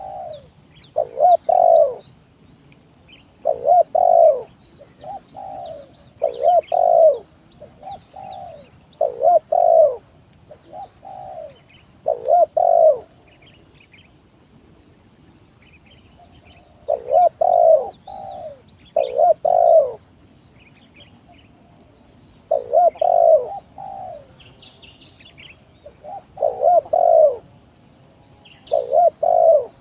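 Spotted dove cooing: loud phrases of low, rolling coos repeated every two to three seconds, with a pause of a few seconds about halfway. Faint chirps of small birds can be heard behind it.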